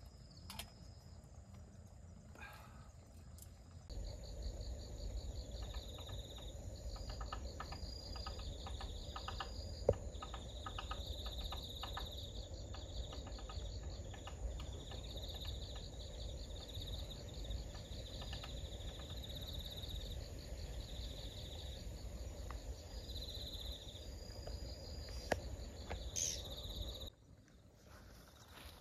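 Insects chirping in repeated high, pulsing trills over a low steady rumble. The chirping starts a few seconds in and stops shortly before the end.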